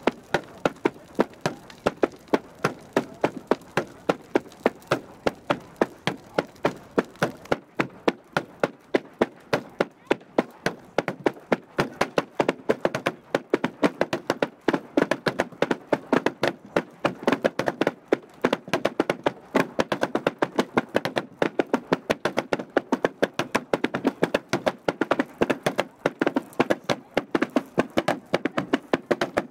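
Hand threshing flails beating on a wooden plank threshing floor in a steady, even rhythm of sharp wooden knocks, about three strokes a second.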